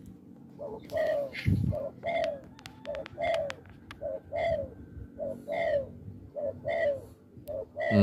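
A dove cooing over and over, short repeated notes at about two a second, with a dull thump about a second and a half in.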